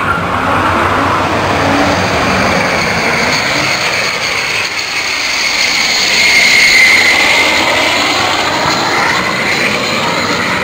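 A jet kart's jet engine running hard on a drag-strip run: loud, continuous jet noise with a whine that slides up and down in pitch, loudest a little past the middle.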